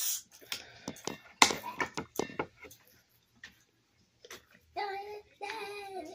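A person drinking soda from a can. A quick run of clicks and knocks comes in the first couple of seconds, then two steady hummed voice sounds near the end.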